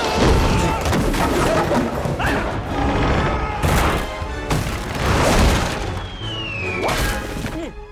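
Film soundtrack: orchestral score under repeated crashes and booms of heavy wooden timbers smashing and splintering, with a falling whistle-like tone about six seconds in.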